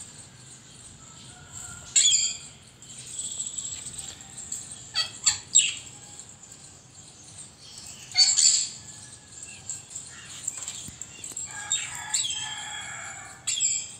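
Birds chirping intermittently, with a few short sharp chirps standing out and a busier run of chirps near the end.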